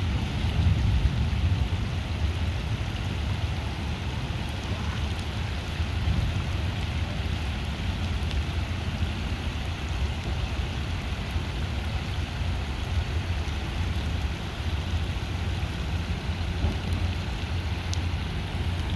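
Heavy rain pouring onto a flooded street: a steady hiss with a low rumble underneath.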